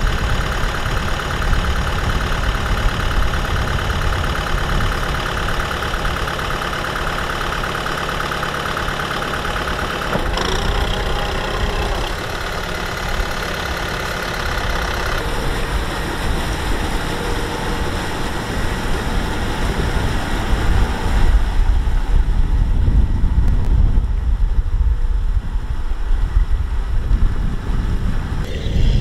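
Kubota M6040SU tractor's diesel engine running steadily at idle, its tone shifting a few times, with a heavier low rumble in the last several seconds.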